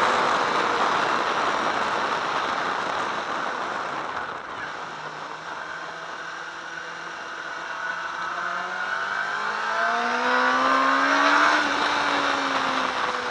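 Sport motorcycle engine heard from an onboard camera under steady wind rush. The revs drop and the engine runs quieter through the middle, then climbs in pitch from about eight seconds in as the bike accelerates out of the corner, easing off again near the end.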